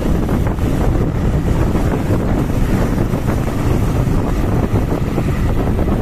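Wind buffeting the microphone of a moving motorcycle: a loud, steady rush of noise, heaviest in the low end.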